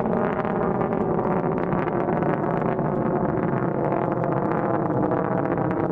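Steady, continuous rumble of the ZK-1A (Lijian-1) solid-fuel rocket's motor, heard from the ground as the rocket climbs away after liftoff.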